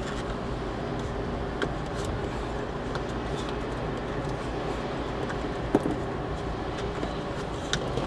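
Hands wrapping electrical tape around a cable connector: quiet tape-handling sounds with a few small clicks over a steady low hum.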